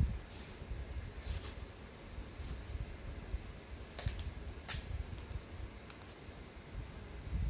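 Athletic tape being pulled off the roll and pressed around a wrist and thumb: a string of short tape peels and sharp clicks over a low rumble.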